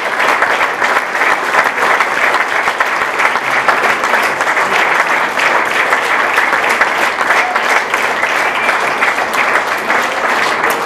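A roomful of people applauding: dense, continuous hand-clapping that stays at the same level throughout.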